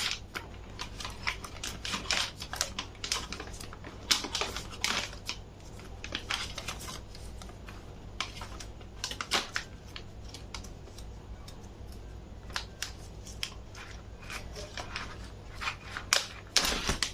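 A plastic snack pouch being handled and opened: scattered crinkles and sharp clicks. They come most thickly about four seconds in, around nine seconds, and again near the end.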